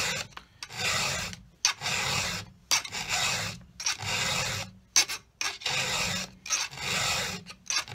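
Round chainsaw file rasping across the cutters of a Husqvarna 365 chainsaw chain, hand-sharpening a dull chain. The strokes come in a steady series, about one a second, with short pauses between them.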